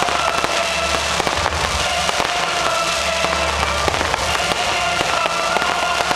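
Fireworks going off in a dense run of sharp cracks and pops, over music with long held notes.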